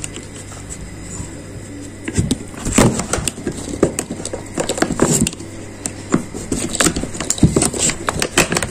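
Handling noise from keys and a BMW E39 ignition lock cylinder: irregular clicks, knocks and rustles, starting about two seconds in, as a key from another car is tried in the cylinder.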